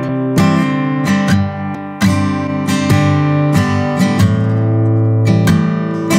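Acoustic guitar strummed in chords, played back from a studio recording made with a condenser microphone. Sharp strums come at uneven intervals, each chord left ringing.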